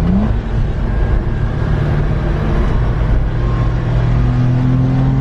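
1992 Suzuki Carry's small three-cylinder engine revving hard under acceleration. Its pitch climbs sharply at the start, then holds high and steady, creeping up a little toward the end.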